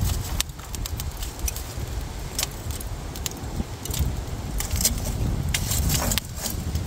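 Lumps of charcoal clinking and clattering as they are shifted about in a barbecue grill, many small clicks in irregular succession, over a steady low rumble of wind on the microphone.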